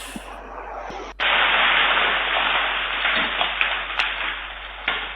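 Loud, steady hiss of static from a doorbell camera's audio, cutting in suddenly about a second in, with a few faint clicks in it.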